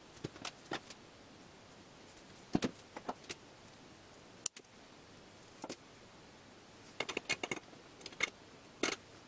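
Scattered light clicks and knocks of parts being handled while an HHO electrolyser cell is stacked: the top end plate and a painted metal support frame are set onto the stack of stainless steel plates between threaded rods. The sharpest knock comes a little under three seconds in, and a cluster of quick taps about seven seconds in.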